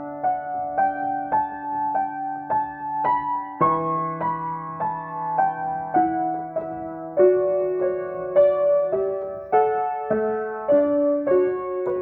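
Acoustic piano playing a slow, gentle improvisation. A melody of single struck notes, about two a second, runs over low notes held for several seconds.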